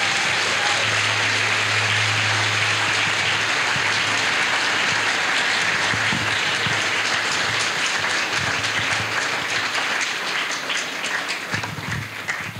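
Audience applauding, a dense steady applause that thins out into scattered separate claps near the end.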